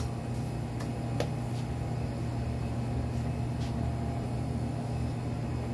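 A steady low electrical hum with a few light clicks and taps as utensils and containers are handled while cocoa powder is set out.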